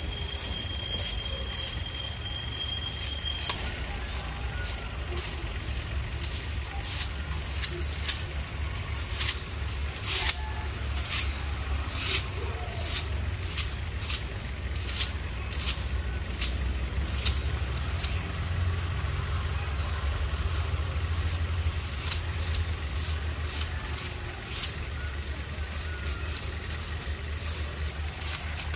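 Insects droning steadily on one high, unbroken pitch, with short swishes at irregular intervals as a wooden-handled broom or stick is worked over a stone grave slab.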